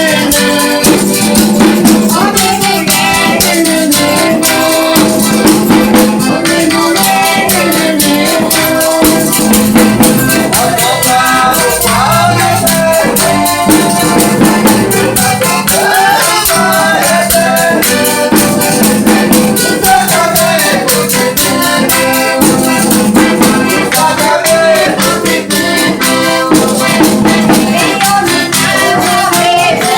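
Folia devotional song: voices singing a folk melody over a steady, fast shaken rhythm of rattles and tambourine, with a sustained low drone.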